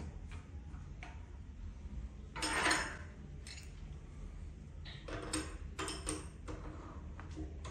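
Workshop handling sounds: scattered knocks and clinks of hard objects being picked up and set down, with a louder rattling clatter about two and a half seconds in and a quick run of knocks near the five-second mark, over a steady low hum.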